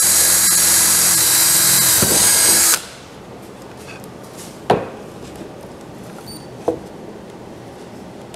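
Cordless drill spinning up and boring a knob hole through a wooden drilling jig into a painted wooden cabinet door, then stopping abruptly about three seconds in. Two short knocks follow, about two seconds apart.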